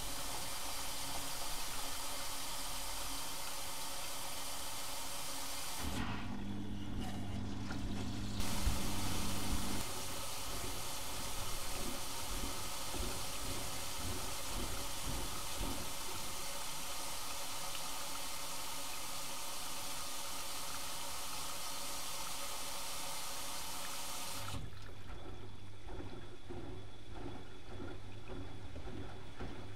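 Bauknecht WAK 6950 washing machine taking in water: a steady hiss of water rushing in through the inlet. About six seconds in the hiss drops out for a couple of seconds under a low hum, then resumes and stops near the end, leaving the low hum.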